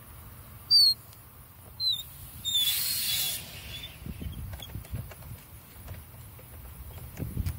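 Outdoor hose spigot squeaking sharply twice as its valve and fittings are turned, then a hiss of about a second as water starts through the opened valve into the garden hose. Soft knocks and rustles from hands on the fitting follow.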